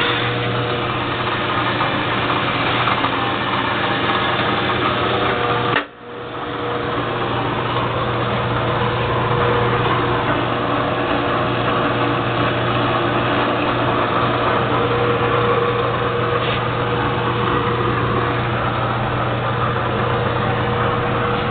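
A 16-speed, 13-inch swing drill press, driven by a half-horsepower 115-volt motor, running steadily with a constant hum. The sound drops out sharply for a moment about six seconds in, then comes back.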